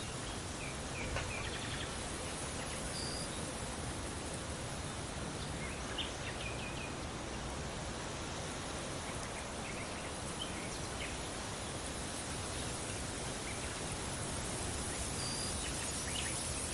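Steady wind noise, with scattered short, high bird chirps here and there.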